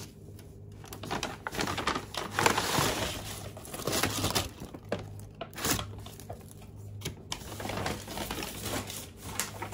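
Brown paper shopping bag rustling and crinkling in irregular surges as items are pulled out of it, with scattered crackles and light knocks.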